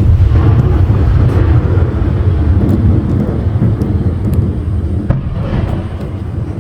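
Aerial fireworks shells going off: a loud, continuous low rumble of bursts and their echoes with faint crackling, and a fresh burst about five seconds in.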